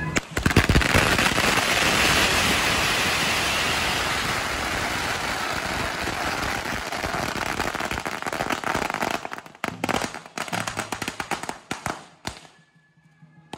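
A large heap of string firecrackers going off: a dense, continuous crackle of rapid bangs that thins to scattered separate pops after about nine seconds and dies out about a second before the end.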